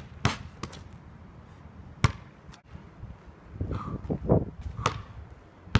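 Basketball bounced on asphalt and slapped into the hands: a few sharp single impacts spaced a second or more apart, with softer scuffing between them.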